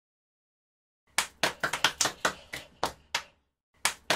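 Hands clapping: a run of sharp, separate claps, about four a second, starting about a second in, with a short pause near the end before the clapping picks up again.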